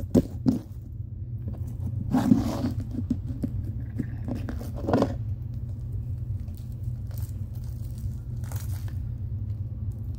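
Fluffy slime being squished and kneaded by hand: scattered small clicks and pops, with two louder squelches about two and five seconds in, over a steady low hum.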